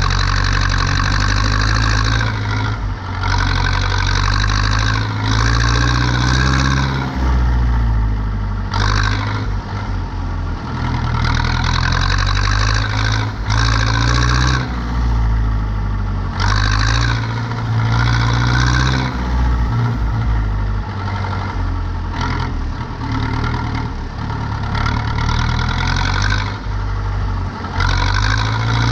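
Zetor 7245 tractor's diesel engine running steadily while turning hay, with a brighter mechanical noise that swells and drops back every few seconds.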